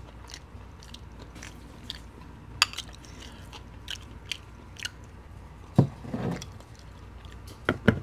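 Close-miked eating sounds: a spoon clicking and scraping in a small glass bowl of sour cream, then chewing and mouth smacks on gravy-covered fries. They come as scattered short clicks, with a few louder ones about six seconds in and near the end.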